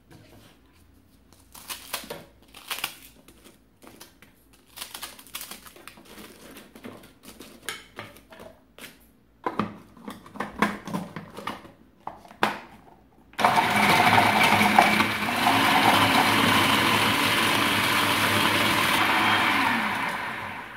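Hard pieces of stale bread clattering as they are dropped into a food processor bowl and the lid is fitted. About thirteen seconds in, the food processor's motor starts and runs steadily for about seven seconds, its blade grinding the dry bread into crumbs, then stops just before the end.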